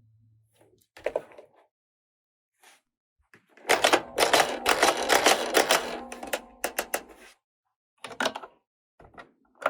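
Plastic toy pieces and packaging being handled: a few sharp clicks, then about four seconds of dense crackling and clicking, then more scattered clicks near the end.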